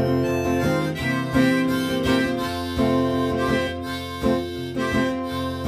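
Harmonica played from a neck rack over strummed acoustic guitar: an instrumental break between verses of the song.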